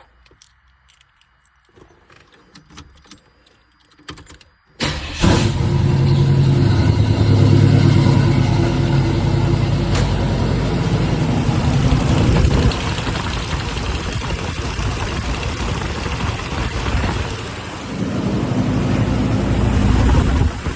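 Cammed small-block Chevy V8 in a 1984 Pontiac Grand Prix cranking and catching about five seconds in, after a few faint key clicks. It runs at a high fast idle, settles lower about twelve seconds in, and rises again briefly near the end. This is the first start on freshly installed headers, run to check for exhaust leaks.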